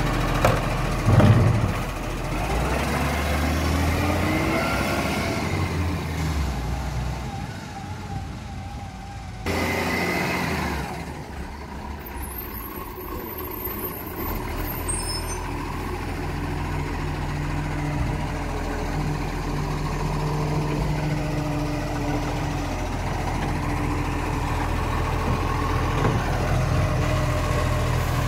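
Automated side-loader garbage truck emptying a wheelie bin: the hydraulic lift arm whines up and down, with a loud bang about a second in as the bin is tipped and shaken into the hopper. After a sudden change the truck's diesel engine runs steadily as it moves along the street.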